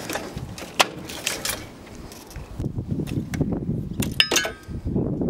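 Wiring and bent metal frame of a scrapped industrial drive cabinet being handled and pulled about: rustling and rumbling with a few sharp clicks and knocks, the loudest cluster about four seconds in with a brief metallic ring.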